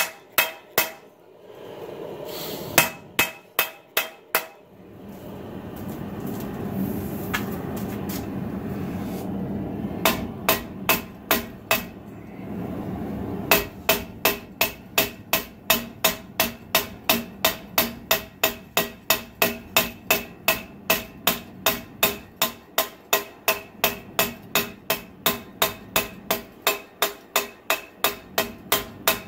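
Hand hammer striking a red-hot 80CrV2 steel knife blade on a 66 lb cast steel anvil, each blow ringing, while the blade's tip is drawn out. The blows are scattered at first, with a steady rushing noise in the middle. About halfway in they settle into a steady rhythm of about two blows a second.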